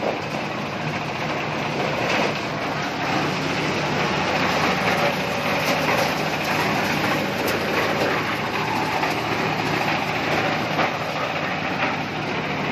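Corn sheller for unhusked cobs running steadily: a dense, even rattle over a steady low hum.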